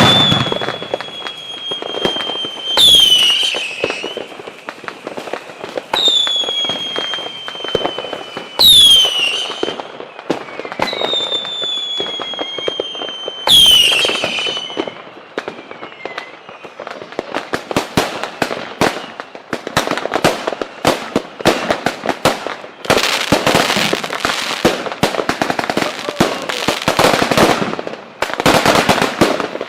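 Fireworks. Three whistling fireworks each give a whistle that falls slowly in pitch for two or three seconds and ends in a loud bang with a sharp downward sweep. From a little past halfway a dense run of rapid pops and crackles follows, growing thicker near the end.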